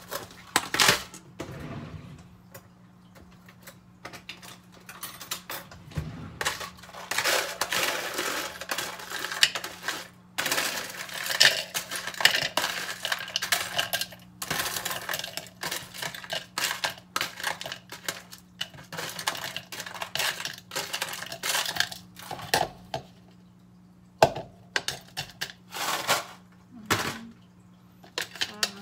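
Frozen blueberries clattering into a clear plastic blender cup from a plastic tub, in two long spells of dense rattling, then scattered clicks and taps as a spoon works in the cup near the end.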